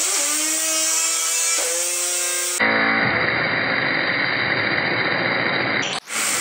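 A 60,000 PSI waterjet stream hissing against a spinning Razor scooter light-up wheel, with a whine that rises over the first half second as the wheel spins up and then holds steady. About two and a half seconds in, the sound cuts abruptly to a duller, muffled rushing.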